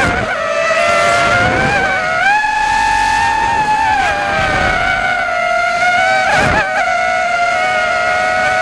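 FPV racing miniquad's brushless motors and propellers whining, the pitch sagging and climbing with the throttle. There are sharp dips and recoveries at the very start and again about six and a half seconds in.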